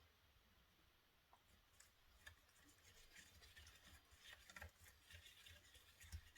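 Near silence with faint, scattered light scratches and taps of a small brush working coloured resin into the molds.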